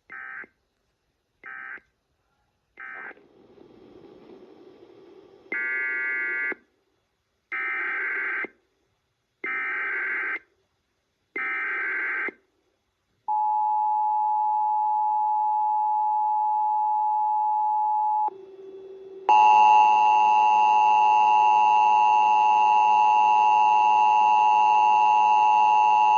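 Emergency Alert System broadcast tones. It starts with three short end-of-message data bursts, then four longer SAME header data bursts about two seconds apart. Then comes the two-tone attention signal, held steady for about five seconds, and then a louder, buzzier attention tone that sets in about 19 seconds in.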